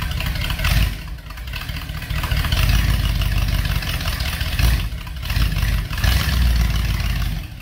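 1977 Dodge B200's 318 V8 running through its performance exhaust with a deep rumble, the revs rising and falling several times as it is given throttle in gear. The van does not move yet: its brakes are sticking.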